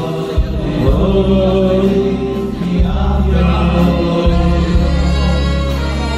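A man singing Hasidic Jewish music into a microphone over an amplified sound system, with other voices joining in and a steady low instrumental accompaniment underneath.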